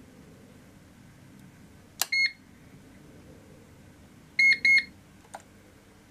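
Daystate Air Wolf MCT air rifle's electronic beeper. A click and a short high beep come about two seconds in, then two quick high beeps that mark stage two of its program mode, the shot counter. A light click follows just after.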